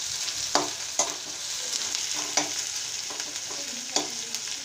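Sliced onions and green chillies sizzling in hot mustard oil in an iron kadhai, frying toward golden brown. A metal spoon stirs them, scraping the pan, with four sharp clinks against the iron.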